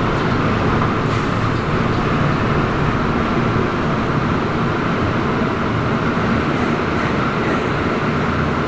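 Steady running noise inside a moving Trolza-5265.00 Megapolis trolleybus: an even rumble of the running gear and road under way.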